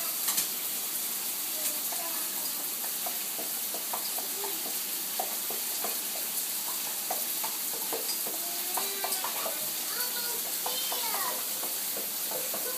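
Shower spray hissing steadily onto a fiberglass shower stall, with scattered small splashes and taps. A few short pitched sounds come about two-thirds of the way through.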